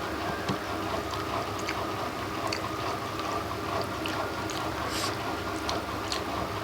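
Close-up eating sounds: wet chewing, lip smacks and small clicks of someone eating rice and fish curry by hand, over a steady background hum.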